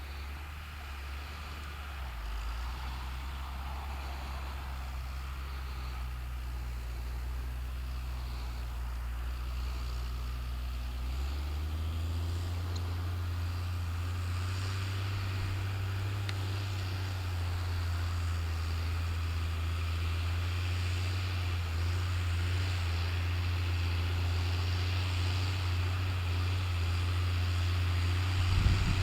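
New Holland TM120 tractor engine running steadily while pulling a four-furrow reversible plough. The note steps up in pitch and level about eleven seconds in and then grows slowly louder. A short knock comes near the end.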